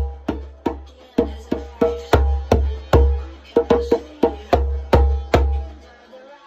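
Djembe played with bare hands, a steady run of strokes about three a second, each with a deep bass note and a ringing higher tone. The playing stops briefly near the end.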